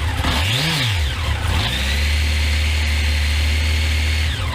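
Honda X11's 1137cc inline-four engine on its stock exhaust, being revved. It gives one quick blip up and back down, then is held at steady high revs for a few seconds before dropping back near the end.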